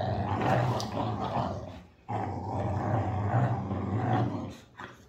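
Boxer dogs growling while tugging on a rope toy in play: two long, low growls with a short break about two seconds in.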